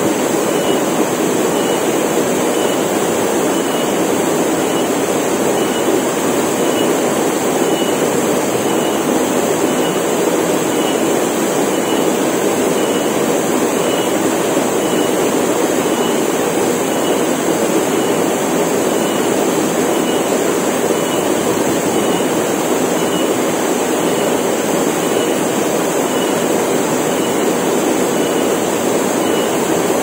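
Waterfall plunging into a rock pool: a steady, unbroken rush of falling water. Over it runs a steady high-pitched cicada drone, with a faint high note repeating about every three-quarters of a second.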